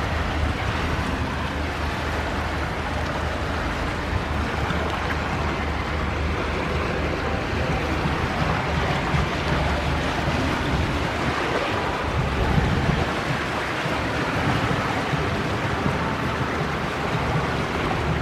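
Steady rushing of the flooded Seine's fast current swirling past a stone bridge pier, with a low rumble underneath.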